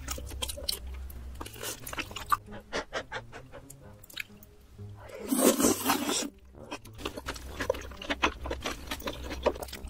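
Close-miked eating sounds: wet chewing and mouth clicks as chewy noodles and rice cakes are eaten, with a louder slurp lasting over a second about five seconds in.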